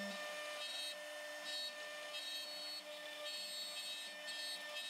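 CNC router spindle running with a steady high whine while its ball-nose bit carves hardwood, with an on-and-off hiss as the bit cuts.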